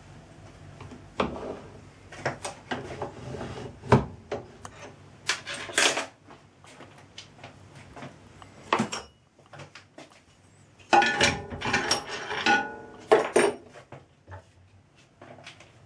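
Steel lathe fittings and hand tools being handled and set down on a lathe: irregular metallic clanks, clicks and scrapes, with a quick run of rattling clanks about eleven seconds in.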